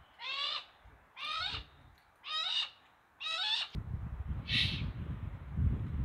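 Owl calling: four harsh, half-second calls about a second apart, then a hissier call. A low rumble comes in partway through.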